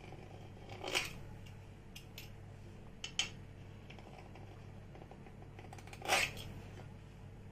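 A few light clicks and scrapes of kitchen utensils while dough ornaments are shaped by hand, the loudest about six seconds in, over a faint steady hum.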